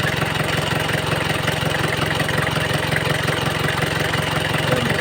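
Isuzu Trooper's diesel engine idling steadily, with an even, rapid beat.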